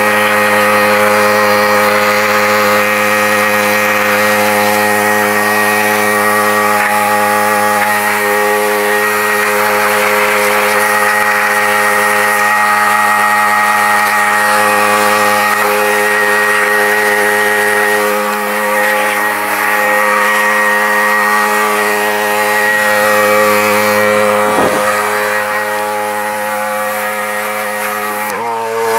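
Gas-engine pressure washer running steadily, its small engine droning under the hiss of the wand's water jet spraying the car's wheel and body panels. Near the end the engine note rises slightly.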